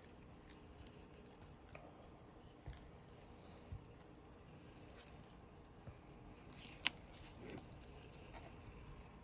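Faint soft clicks and taps of a ladle scooping thick Greek yogurt into a clay pot, with one sharper tap about seven seconds in.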